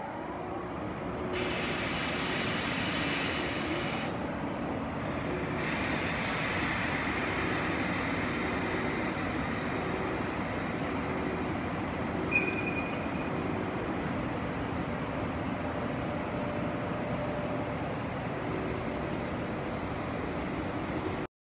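JR EF81 electric locomotive running light, standing and then slowly pulling away: a steady mechanical hum with a stretch of loud air hiss starting about a second in and lasting about three seconds, and a brief high squeal about twelve seconds in.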